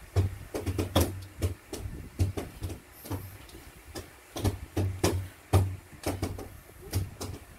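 A child beatboxing: mouth-made drum sounds in a quick, uneven rhythm of low thumps and sharp clicks.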